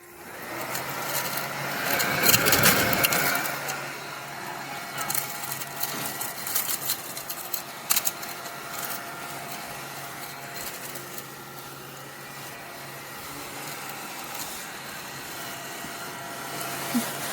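Mini desktop crumb vacuum's small motor starting and running with a steady hum. There is a loud rustling swell about two seconds in, and scattered clicks and rattles as it is worked over a surface picking up debris.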